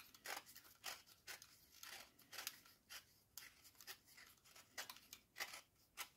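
Utility knife blade shaving the cut edge of a round plasterboard plug, a series of short faint scrapes about two a second, as the edge is bevelled to remove the burr.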